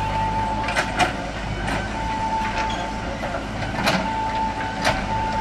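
JCB backhoe loader's diesel engine running steadily while the rear backhoe bucket digs. A high, steady whine comes and goes, and there are several sharp knocks from the bucket in stony earth.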